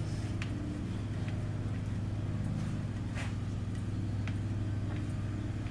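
Steady low machine hum from an electric motor, with a few light metallic clicks.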